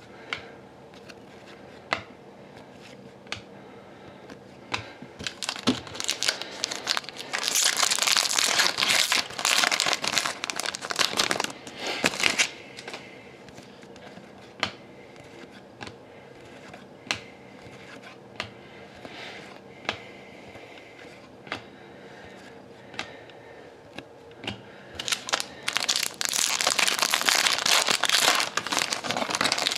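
Trading card packs being torn open and their foil wrappers crinkled, in two long spells, with scattered light ticks of cards being flicked through in between.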